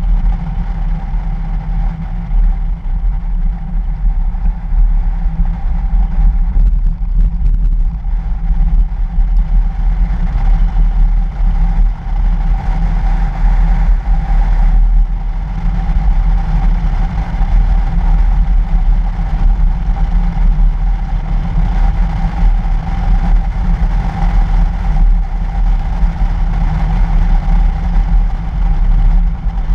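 2013 Toyota FJ Cruiser driving on a snow-covered road, heard from a camera mounted outside on its body: a steady deep rumble of wind and road noise over the engine, with a constant hum.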